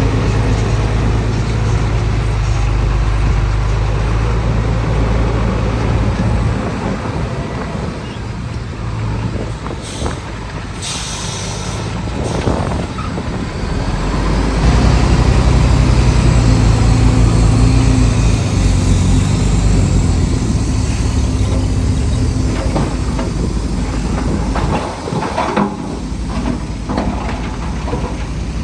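Heavy diesel engines of a bulldozer and a dump truck working under load, the engine note easing off and then building up again, with a short hiss about ten to twelve seconds in.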